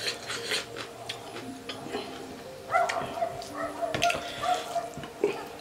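Close-miked eating sounds: chewing and wet mouth smacks over pork curry and rice. About halfway through, a thin, high, steady whining tone joins in and runs on over the chewing.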